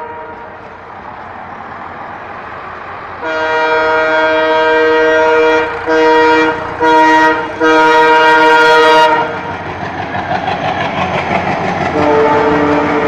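Locomotive air horn sounding a long blast, two short blasts and another long blast, then the rumble of WDM-3D twin diesel locomotives running past, with the horn sounding again near the end.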